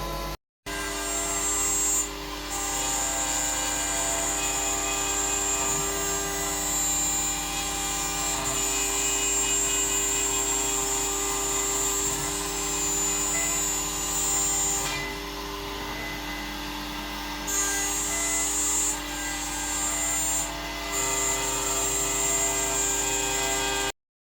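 Onefinity CNC router's spindle running at high speed while milling brass: a steady high whine over a lower hum, the highest tone dropping away briefly a few times. It cuts off suddenly near the end.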